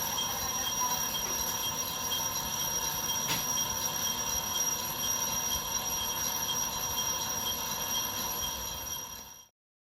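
Japanese train running, heard from the driver's cab, with the ATS-Sx warning's continuous electronic tone sounding steadily over the running noise. There is a single click about three seconds in, and the sound fades out just before the end.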